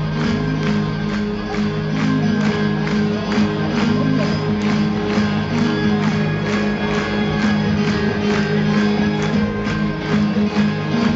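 Acoustic guitar strummed hard in a fast, steady rhythm, about three strums a second, played live on stage as an instrumental passage before the vocals come in.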